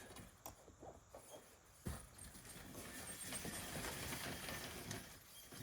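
Light clicks and knocks of metal on the greenhouse door frame and hinge as a hinge bolt is loosened, with a sharper knock about two seconds in, then a longer scraping noise.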